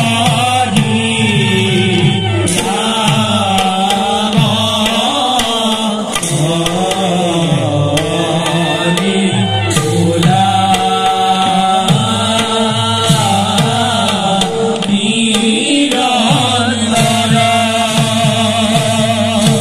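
Live devotional music from a seated ensemble: voices chanting a winding melody over steady rhythmic hand-drum strokes, with a held tone sounding underneath.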